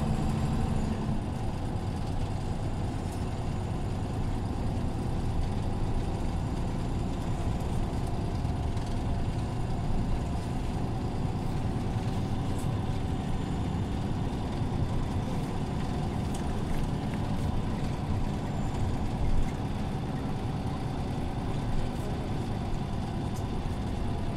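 Scania OmniLink CL94UA city bus running with a steady low engine drone, with a couple of brief knocks in the second half.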